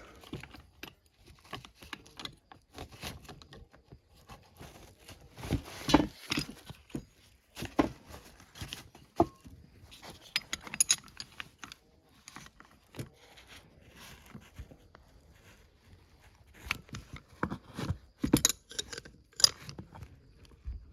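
Intermittent metallic clicks and clinks of a 13 mm wrench at work on a carburetor, fastening the float bowl back on.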